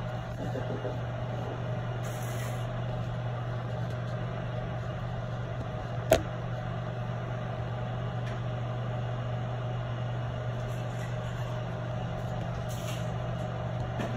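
Steady low mechanical hum, with one sharp click about six seconds in.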